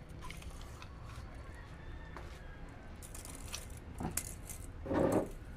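Light handling sounds: scattered small clicks and rustles, a brief run of sharper ticks about three seconds in, and one louder short rustle about five seconds in.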